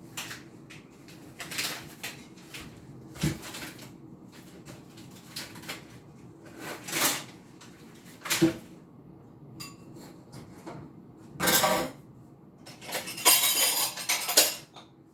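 Eating utensils clinking and scraping against a dish of food: scattered short clicks, with a few longer, louder scrapes in the last few seconds.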